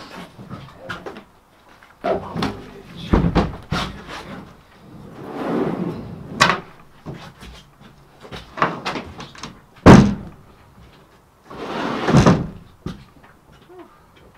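A string of knocks and bangs from work inside an aluminium boat's hull as floor panels and gear are moved and set down. The loudest bang comes about ten seconds in and another strong one about two seconds later.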